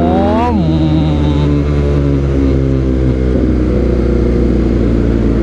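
BMW R nineT's boxer twin running through a Villan aftermarket exhaust, giving a steady low engine note while the bike is ridden.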